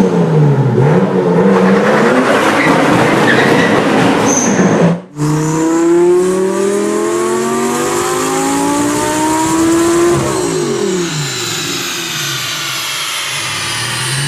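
Turbocharged car engine revving hard. Its pitch dips and climbs, drops out briefly about five seconds in, then climbs steadily for about five seconds under acceleration before falling away, with a high whine that falls slowly as it lifts off.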